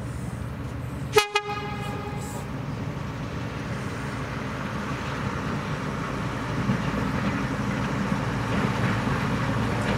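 Diesel shunter's horn gives one short toot about a second in, followed by the locomotive's engine and train rumbling and growing steadily louder as it approaches hauling coaches.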